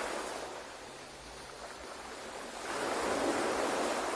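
Ocean waves washing on a shore, a soft wash that ebbs early on and swells again with the next wave.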